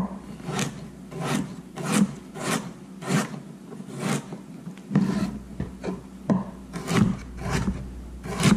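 Chef's knife slicing raw carrot into thin sticks on a plastic cutting board: about a dozen short cutting strokes, roughly one every two-thirds of a second.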